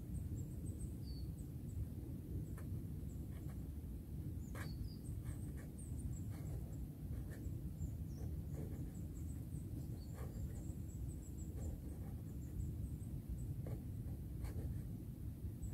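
Quiet forest ambience: a steady low rumble with scattered small clicks and snaps of twigs and kindling being handled on the ground, and a few faint high bird chirps.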